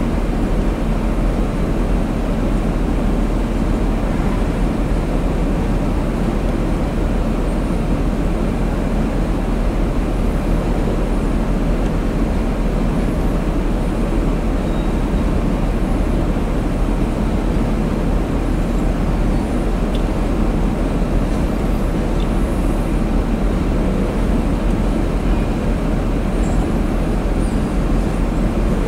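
Freight cars of a manifest train rolling past at close range: a steady, even rumble of steel wheels on the rails.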